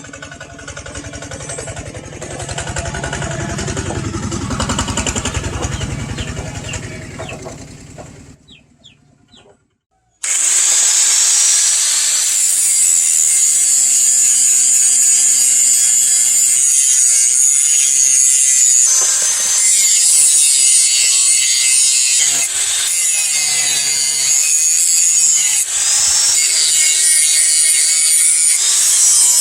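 A power tool grinding steel: a loud, steady, high-pitched grinding noise that starts suddenly about ten seconds in and runs on with a few brief dips. Before it, a shorter mixed workshop noise swells and fades out, then there are about two seconds of silence.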